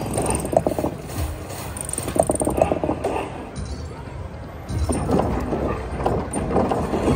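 Huff N' Puff video slot machine sound effects: bursts of rapid ratchet-like clicking, in three groups, as house symbols land and build up on the reels, over steady background noise.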